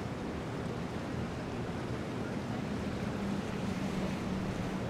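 Waterfront ambience of steady wind and water noise, with a boat engine's low, steady hum coming in about two seconds in.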